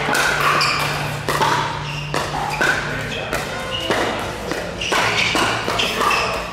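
Pickleball paddles hitting a plastic pickleball back and forth in a fast rally at the net: a quick, uneven series of sharp pops, about a dozen in all.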